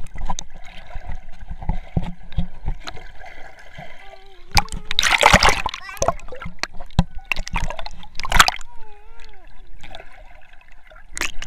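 Pool water splashing and sloshing around a camera held at and under the surface, in irregular bursts with the biggest splash about five seconds in, and faint voices now and then.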